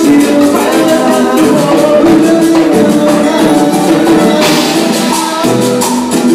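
Cumbia band playing live and loud, with keyboard, timbales and other percussion, accordion and a lead singer's voice over a steady dance beat.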